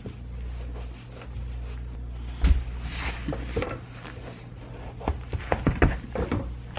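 Sneakers being pulled on and set down on a tile floor: scattered rubbing and knocks, the loudest a thump about two and a half seconds in, then a quick run of taps and clicks near the end, over a low steady hum.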